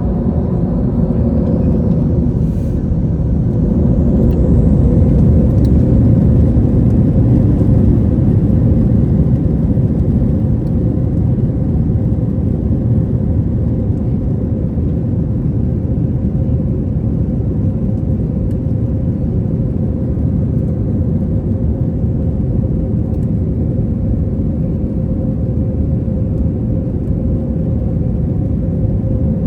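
Airbus A321 passenger-cabin noise: a steady jet engine and airflow rumble with a constant hum over it, swelling slightly a few seconds in.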